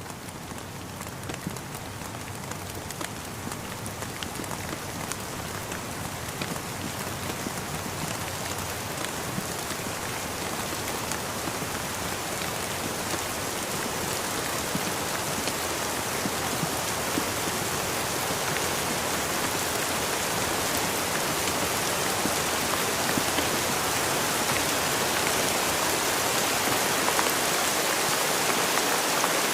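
Steady rain with a dense patter of individual drops, gradually growing louder.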